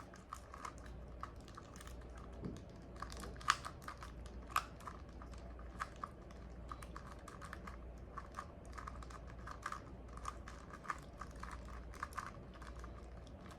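DaYan 2x2 speed cube being scrambled: its plastic layers turning with quick, irregular clicks.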